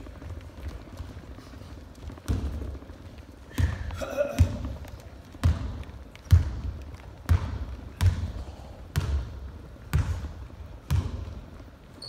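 Basketball being dribbled on a wooden gym floor, about one bounce a second from about two seconds in, each thump echoing in the hall.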